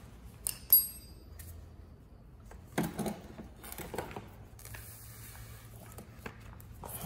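Metal clinking and knocking as a car turntable's drive motor assembly is unhooked from its mount and lifted out. A sharp ringing clink comes about half a second in, the loudest sound, followed by a few duller knocks and a brief scrape as the motor is set down.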